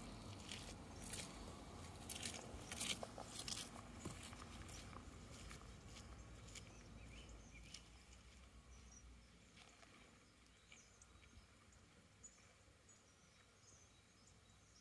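Footsteps in rubber boots on a dirt path, several close, sharp steps in the first few seconds, then fading as the walker moves away. Faint bird chirps in the second half.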